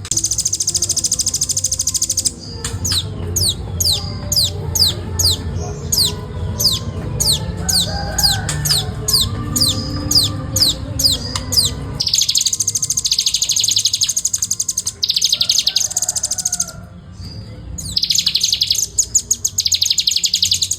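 Velvet-fronted nuthatch calling: long bursts of a very rapid, high trill, broken in the middle by a run of sharply falling whistled notes, about two a second.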